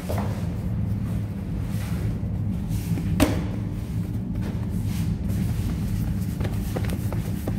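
Hands patting and pressing balls of lavash dough flat on a flour-dusted counter, with soft pats, over a steady low machine hum. A single sharp knock sounds about three seconds in.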